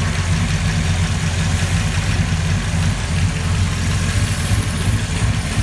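Rebuilt 1989 Ford Mustang 5.0 pushrod V8 with a Comp Cams XE270HR camshaft, idling steadily shortly after its first start. The idle is a little bumpy, which is normal for this cam.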